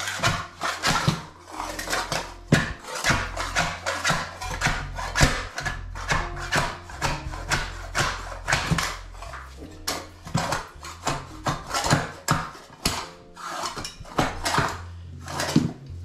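Long-handled floor scraper pushed in quick, repeated strokes across a concrete floor, its blade scraping up linoleum and its adhesive.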